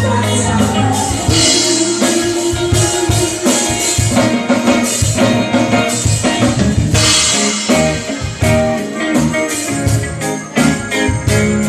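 A live band playing, with the drum kit prominent over the instruments and little singing.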